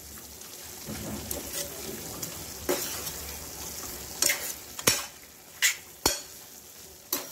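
Metal spoon stirring and scraping chicken pieces in masala around a metal frying pan, over a steady sizzle of frying. There are several sharp clinks of the spoon against the pan, mostly in the second half.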